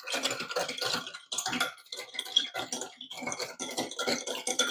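A small handheld whisk with a broken motor, worked by hand in a bowl of coconut-milk agar-agar mixture. It makes quick, irregular rattling strokes, a few a second, and there is no motor hum.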